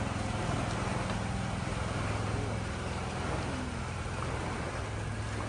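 A boat engine idling steadily with a low hum, over the rushing noise of water being splashed.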